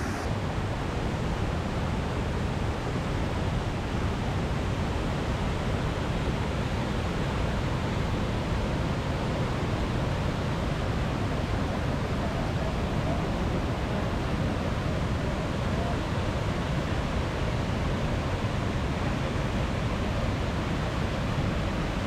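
Steady roar of a waterfall: an even rush of falling water with no breaks or changes.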